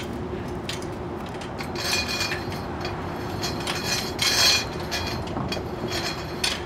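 Metal chain-link gate being worked open by hand: the latch and fence rattle and clink, loudest about two seconds in and again around four seconds in. A steady hum runs underneath.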